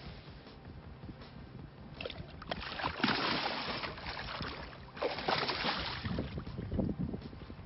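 Water splashing and sloshing in two bursts, about three and five seconds in.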